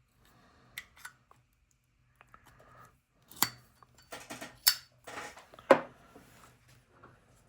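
Handling of Zippo lighters and their cases: a few soft clicks, then three sharp metallic clacks, two of them with a brief ring, amid softer rustling.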